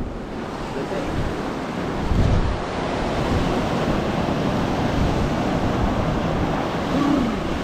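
Surf breaking and washing up the shore, with wind buffeting the microphone. The noise swells about two seconds in.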